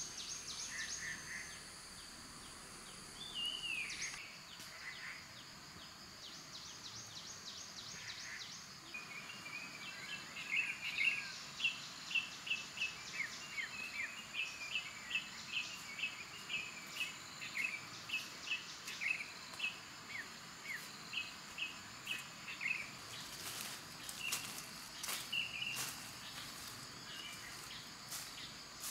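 Forest ambience: insects keep up a steady high-pitched drone while birds call. For much of the middle a bird repeats short chirps about twice a second. A few sharp clicks come near the end.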